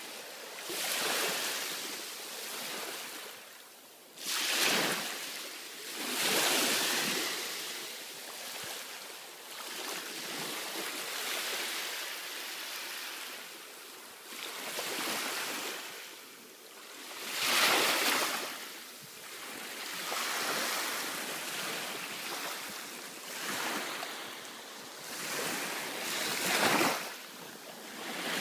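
Small sea waves washing onto a sandy beach, a steady hiss of surf that swells and falls in irregular surges every few seconds.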